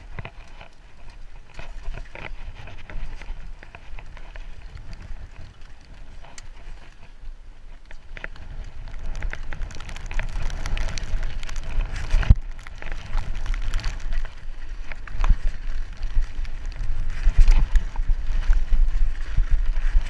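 Mountain bike ridden down a wet, muddy trail: tyres rolling over mud and stones, and the bike rattling and knocking over bumps. It grows louder about halfway through, with one sharp knock a little after that.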